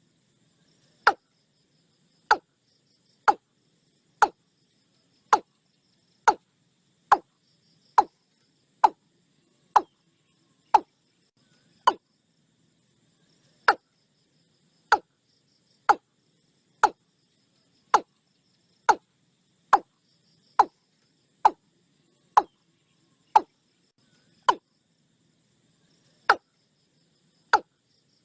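Short, sharp knocks or tocks repeating about once a second, slightly uneven, with two short pauses, against a faint high insect buzz.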